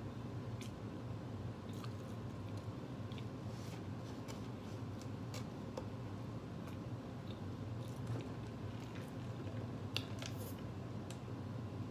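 A person chewing and biting into a burger and fries, with soft wet squishing mouth sounds and scattered small clicks and crackles. A steady low hum runs underneath.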